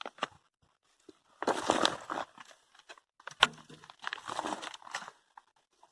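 Old rags caked with dried clay being pulled out and handled, in a few noisy bursts with a sharp knock about three and a half seconds in.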